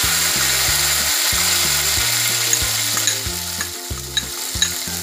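Ground spice paste of chillies, shallots, garlic, candlenuts and tomato sizzling loudly in hot oil in a wok, just after it went in. The hiss eases off over the last two seconds while scattered pops and crackles come through.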